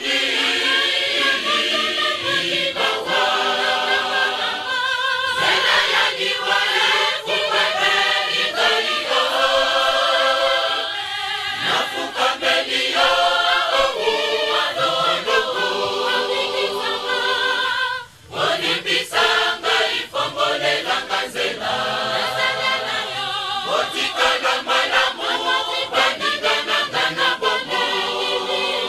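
A choir singing, with held and moving sung notes and a short break about eighteen seconds in.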